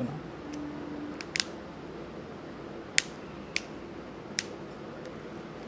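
Short sharp clicks and taps of a smartphone's casing as it is turned over and pressed in the hands: a double click about a second and a half in, then three single clicks, the loudest about three seconds in.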